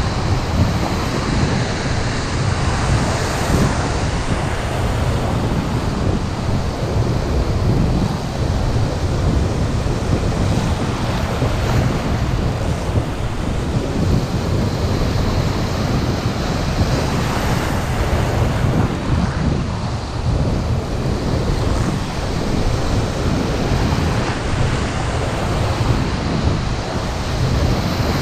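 Surf breaking and washing in close around the wading angler, with wind buffeting the microphone in a steady low rumble.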